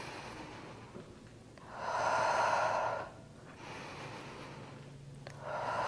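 A woman breathing heavily under exertion. One loud breath comes about two seconds in and lasts over a second, and a softer one begins near the end.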